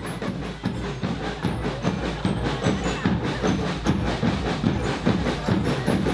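A children's marching band's drums playing a fast, steady beat, with many sharp strokes a second.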